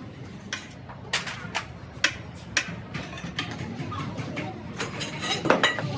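Irregular sharp clicks and knocks of hand tools on engine metal, about one or two a second, over a low steady hum.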